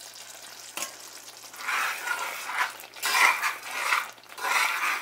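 Spoon stirring thick garlic-tamarind gravy in an aluminium pot, working in freshly added jaggery. Wet, scraping swishes come about once a second, starting about a second and a half in, over a quiet simmering hiss.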